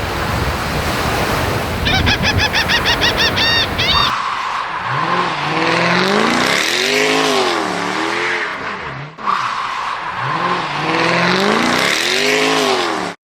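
A car engine revving up and down in repeated rises, the same revving run playing twice before cutting off abruptly. Before it comes a steady rush of noise with a quick run of high chirps.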